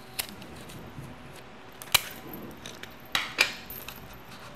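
Stiff vellum paper being handled and rolled into a cylinder and taped, giving several sharp crackles, the loudest about two seconds in.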